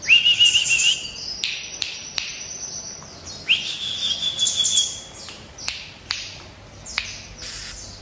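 Caged songbird kept as a live song tutor for young white-eyes, singing two long, slightly wavering whistled notes, the second higher, among high thin twittering. Sharp ticks come now and then.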